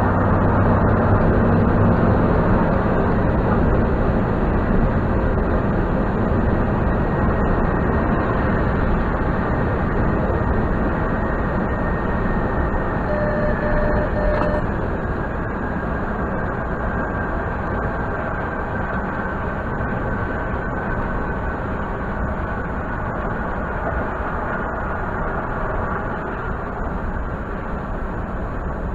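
Steady road and engine noise inside a Ford F-150 pickup's cab, heard as a muffled rumble that eases a little about halfway through as the truck slows in traffic.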